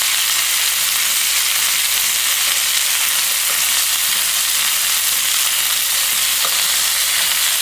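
Chicken cutlets searing in hot olive oil in a stainless steel pan: a steady, even sizzle. A couple of faint clicks from metal tongs shifting the pieces come partway through.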